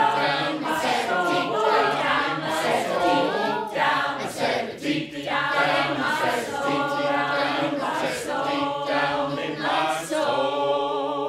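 Mixed choir singing a cappella, several voice parts moving over a steady low held note, and closing on a long held chord near the end.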